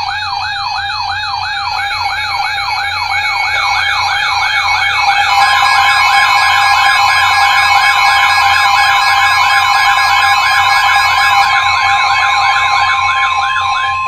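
Several weather radios sounding their alert alarms together for a Special Marine Warning: a fast siren-like warble, about three sweeps a second, over several steady beeping tones. About five seconds in, a steady tone near 1 kHz joins in, the NOAA Weather Radio 1050 Hz warning alert tone.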